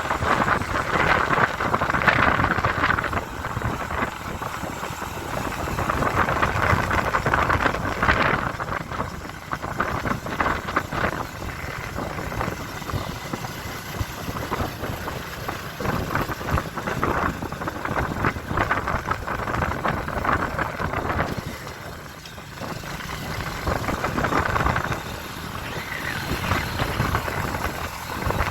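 Motorcycle running on the road, its engine mixed with wind and road noise that swells and eases, dipping briefly about two-thirds of the way through.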